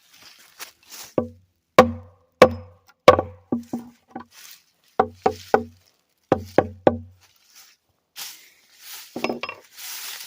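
About a dozen sharp wooden knocks in three quick clusters, each knock with a short ringing tone. A softer scraping rustle comes near the end.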